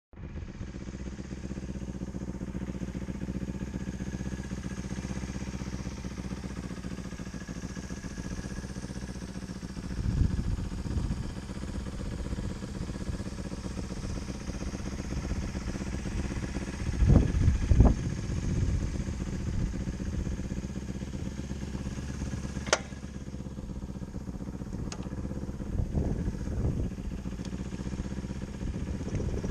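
Prototype vintage-style electric motorcycle running, a steady hum from its electric drive. Heavier low rumbles come three times, loudest about two-thirds of the way in, and there are a couple of sharp clicks near the end.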